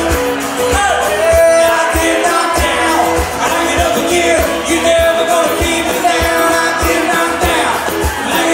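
Live country-rock band: sung lead vocals over strummed acoustic and electric guitars with a steady beat of about two strokes a second.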